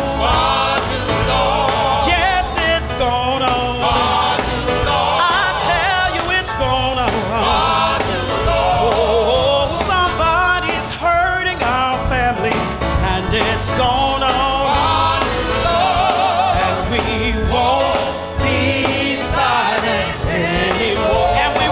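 Gospel music: sung lines with wavering, drawn-out notes over instrumental accompaniment.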